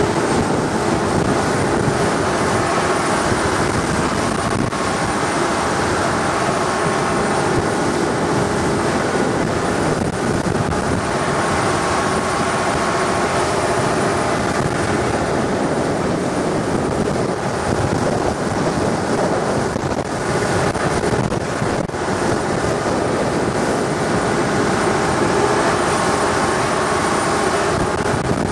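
Longtail boat engine running steadily, an unbroken drone with no let-up in pace.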